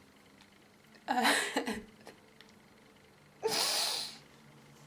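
A woman crying: a short voiced sob about a second in, then a long sharp sniff a little past halfway.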